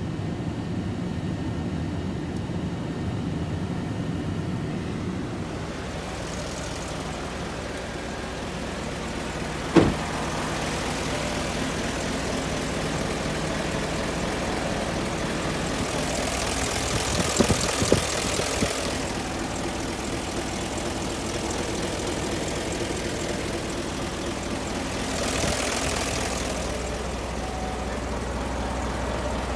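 Isuzu Giga heavy truck's diesel engine idling steadily, with a sharp knock about ten seconds in and a few clicks around eighteen seconds.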